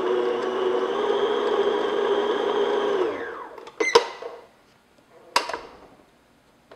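Electric stand mixer running, its flat beater churning batter in a steel bowl with a steady motor whine that winds down, falling in pitch, about three seconds in as it is switched off. Two sharp clicks follow as the bowl and beater are handled.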